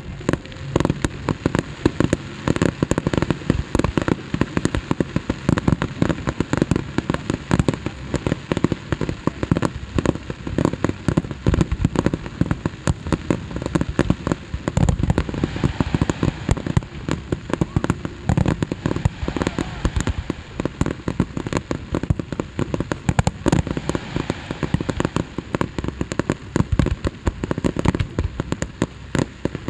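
Fireworks display: a dense, continuous barrage of sharp bangs and crackling bursts, several a second, starting abruptly.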